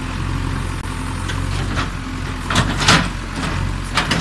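JCB backhoe loader's diesel engine running steadily, with a few sharp knocks as the bucket works the brick rubble, about two and a half and three seconds in and again near the end.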